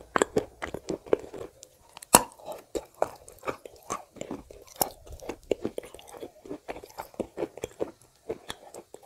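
Close-miked chewing of clay chunks coated in wet clay paste: irregular crunches and moist mouth clicks, several a second. A sharper crunch comes about two seconds in and another near five seconds.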